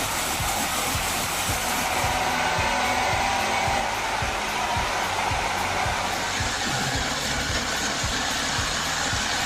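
Big chainsaw running steadily under load, cutting through a massive tree trunk.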